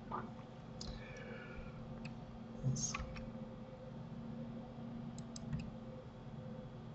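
A few scattered clicks of a computer mouse and keyboard over a faint steady hum.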